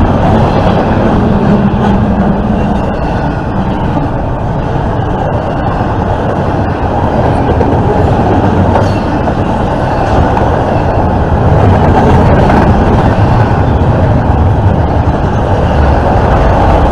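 Intermodal freight train's double-stack container cars and trailer-on-flatcar cars rolling past at speed: a loud, steady rumble of steel wheels on rail.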